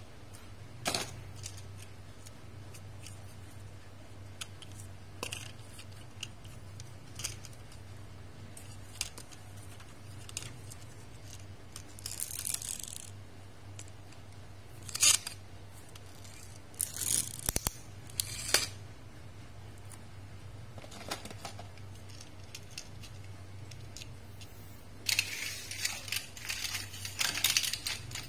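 Small plastic toy cars clicking, rattling and scraping on a hard tabletop, in scattered short clicks and brief rolling rattles. Near the end comes a denser run of rapid rattling clicks as a car is pressed down and rolled by hand.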